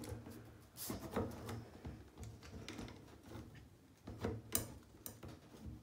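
Light clicks and taps of a thin tool knocking against a plastic spider enclosure, a few scattered strikes with the sharpest about four and a half seconds in.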